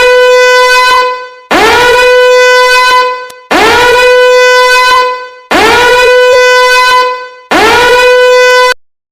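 Phone emergency alert tone: a loud tone sounded five times, one about every two seconds, each sliding briefly up in pitch as it starts and fading out at its end.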